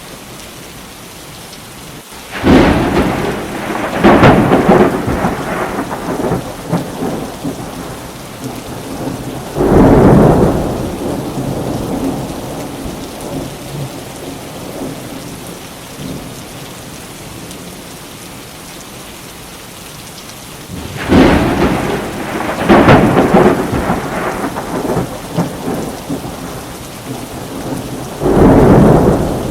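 Thunderstorm: steady rain with thunder breaking in six times, as loud cracks that roll off into rumbles, in two clusters near the start and again after about twenty seconds.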